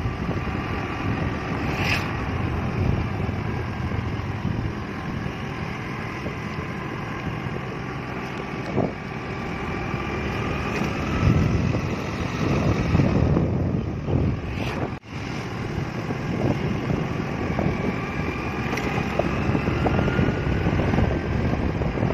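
Wind buffeting the microphone on a moving motorcycle, with the engine running underneath and its pitch slowly rising and falling as the speed changes.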